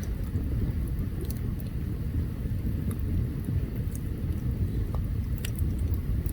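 Open wood campfire burning: a steady low rumble with scattered small sharp crackles and pops, a few bunched together about five seconds in.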